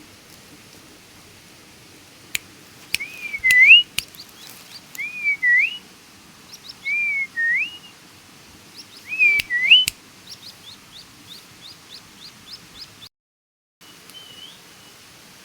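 Whistled bird calls: four loud phrases about two seconds apart, each a short falling note that turns into a quick upward sweep, with a few sharp clicks among them. After them comes a run of rapid, short, high chirps, and near the end some softer whistles.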